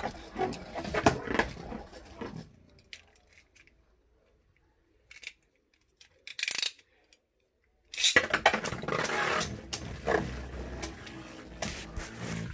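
Handling clatter at first, then a quiet stretch. About eight seconds in, a sudden start of steady scraping and rattling as Beyblade spinning tops whirl and knock together in a plastic stadium.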